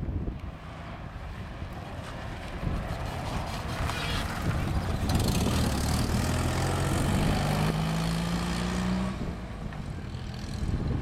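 Fiat 126p's small air-cooled two-cylinder engine revving hard as the car approaches, passes and pulls away through a cone course. It is loudest in the middle, its note climbing under acceleration before breaking off about nine seconds in.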